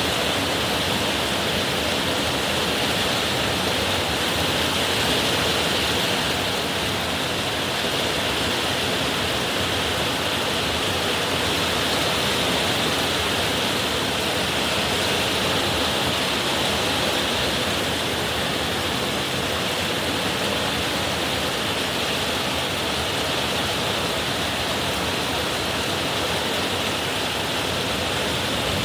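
Heavy rain pouring steadily, an even rushing noise without a break.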